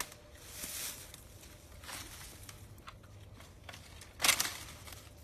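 A few soft rustles and scuffs over a faint outdoor background, the loudest about four seconds in.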